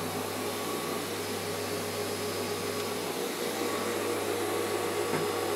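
Vacuum cleaner running steadily, over a steady low hum.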